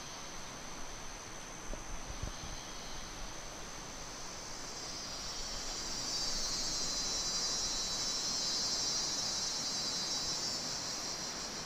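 Insects calling in the grassland: a steady high-pitched tone throughout, joined about five seconds in by a louder, shrill chorus that fades near the end. A few soft low bumps come about two seconds in.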